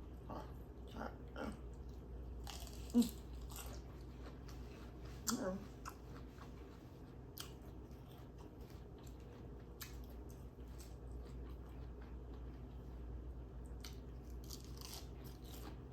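Close-miked chewing and crunching of a mouthful of lettuce salad, with scattered wet mouth clicks and a couple of louder bites about three and five and a half seconds in.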